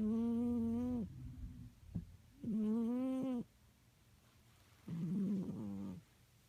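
A sleeping cat snoring: three drawn-out snores about two and a half seconds apart, each about a second long on a steady pitch. The last one is rougher.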